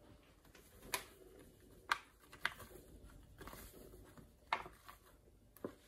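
Paper flour bag rustling in a few short sharp crackles as flour is poured from it into a Thermomix's stainless steel mixing bowl.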